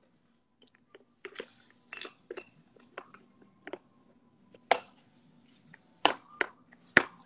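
Handling noise: a scattering of light clicks, taps and knocks from small objects and plastic toys being moved about, irregular and with no rhythm, a few sharper knocks in the last couple of seconds.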